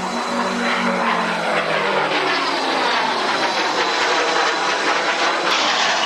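Jet aircraft flying past at an air display: a loud, steady engine roar with a sweeping, shifting quality, its low hum falling slightly in pitch and fading over the first couple of seconds.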